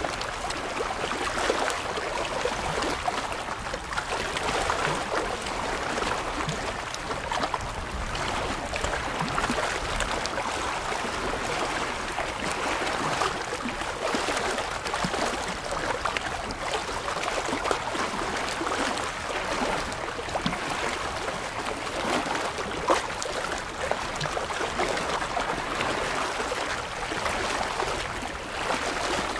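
Small waves lapping and splashing against shoreline rocks: a steady, irregular wash of water full of small splashes and trickles.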